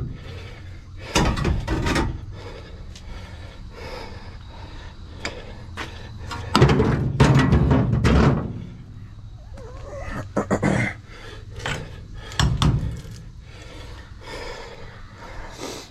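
Irregular metal clunks and knocks from hand work under a jacked-up truck cab, likely removal of the old cab mount. The loudest, densest run of knocks comes about seven seconds in.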